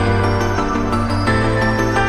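Background music: an electronic track with a steady bass line and held chords that change about a second in.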